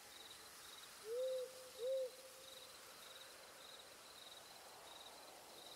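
An owl hooting twice: two short hoots, each rising and falling in pitch, a little under a second apart. Faint high chirping repeats about twice a second underneath.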